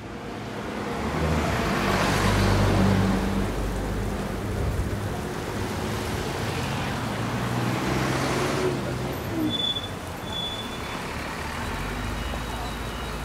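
City street traffic: a steady mix of engine hum and tyre noise from passing vehicles, loudest as a vehicle goes by about two to three seconds in.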